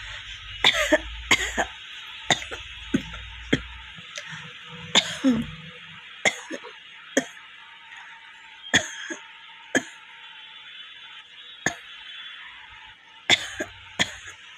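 A woman coughing again and again in short, sharp, dry coughs, irregularly spaced and sometimes in quick pairs, over a steady background hiss. It is a slight cough with no phlegm, which she puts down to 'stomach heat'.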